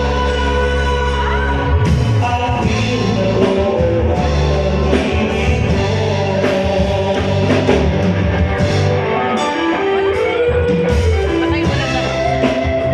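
Loud rock music with singing and guitar.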